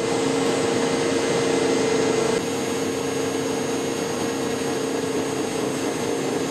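Liebherr gear hobbing machine running with a steady whir and hum, a few held tones over a haze of machining noise. The sound drops a little in level about two seconds in.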